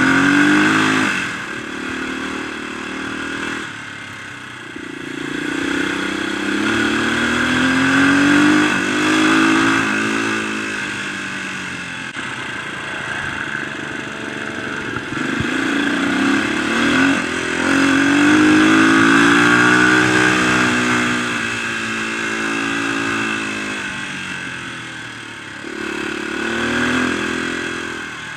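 Dirt bike engine running as it is ridden, heard from on board. Its pitch climbs and drops again and again as the throttle is opened and closed along the track.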